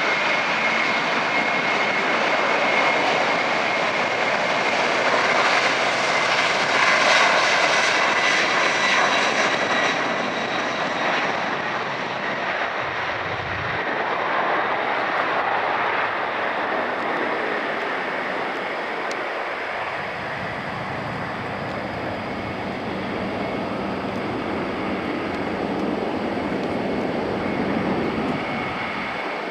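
KC-767 tanker's twin turbofan engines at takeoff power during the takeoff roll and climb-out: continuous jet engine noise with a high steady whine that fades after the first several seconds, loudest about seven seconds in, then slowly easing as the aircraft climbs away.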